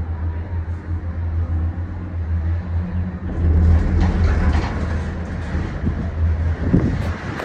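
Steady low hum and rumble inside a moving Disney Skyliner gondola cabin, with a rush of wind noise building about three seconds in.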